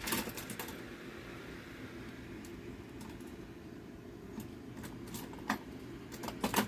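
Scattered sharp clicks and light metallic clinks of hand tools being handled and sorted, bunched at the start and near the end, over a steady low hum.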